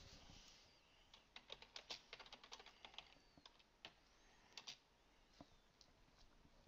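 Faint computer keyboard typing: a quick run of keystrokes starting about a second in, then a few scattered single keys.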